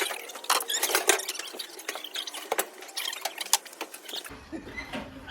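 Rapid, irregular small clicks, knocks and rattles of objects being handled and moved about. About four seconds in, the sound changes abruptly and a low rumble comes in.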